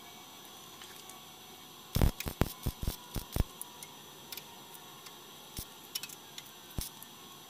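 Steel chipping hammer tapping on the freshly welded steel of an old VW bus quarter panel. About two seconds in there is a quick run of about eight sharp metal taps, then a few scattered single taps.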